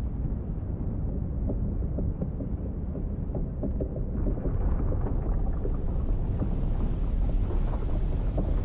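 A glacier's ice front calving and collapsing, making a deep, continuous rumble full of small cracks and crunches of breaking ice. It grows a little louder and fuller about halfway through.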